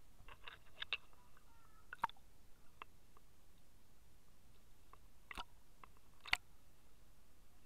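Faint, scattered clicks and taps of water and handling against an action camera's waterproof housing held at the water's surface, over a low hiss. The two sharpest clicks come about two seconds in and about six seconds in.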